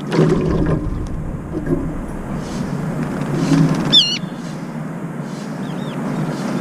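A brown-eared bulbul splashes and flutters in a tub of water, then about four seconds in, perched on the rim, gives one loud, shrill, wavering 'piiik' call, the screech it makes on coming out of the cold bath. A steady low traffic hum runs underneath.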